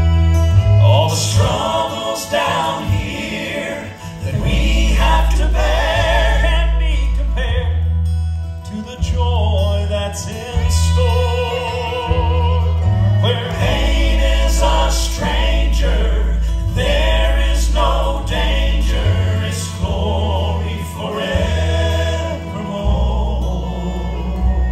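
Gospel music performed live by a vocal trio, voices in harmony with vibrato over instrumental accompaniment and a strong bass line.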